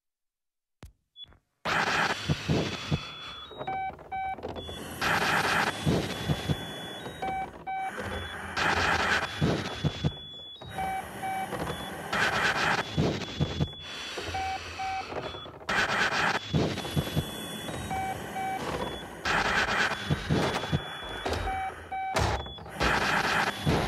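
Runway soundtrack of electronic sound design: short beeps at several pitches, often in pairs, over a dense noisy bed that swells loud about every three and a half seconds. It starts after a second and a half of silence with a couple of faint clicks.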